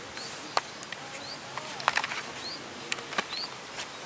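A bird repeating a short rising chirp about once a second, with several sharp clicks and ticks scattered through, over steady outdoor background noise.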